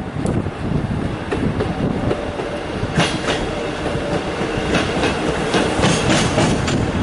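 ScotRail Class 158 diesel multiple unit passing close by: a steady rumble, with its wheels clicking over rail joints. The clicks start about three seconds in and come in quick groups from about five seconds on.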